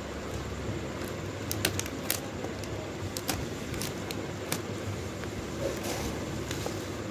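A cardboard smartwatch box being handled: scattered light clicks and taps, several close together about a second and a half in, over a steady low background rumble.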